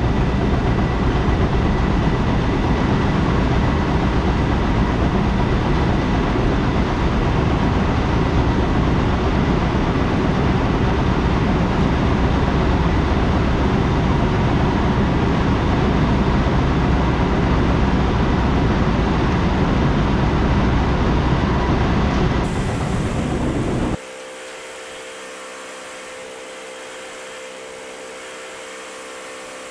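Grain-unloading machinery running while a soybean bin is emptied: a loud, steady rumble. About 24 seconds in it cuts to a much quieter, steady machine hum with a few steady tones.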